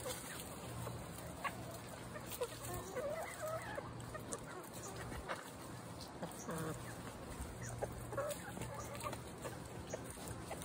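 A flock of chickens clucking while feeding, with scattered short calls and a few brief sharp clicks.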